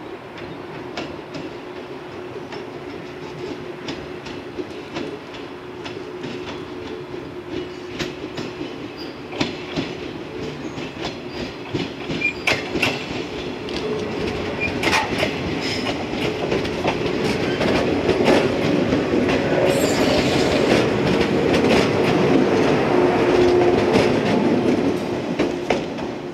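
Yellow 115-series electric multiple unit approaching and passing close by, its wheels clicking over rail joints above a steady hum. The train grows louder through most of the clip, is loudest in its last third, and falls away near the end.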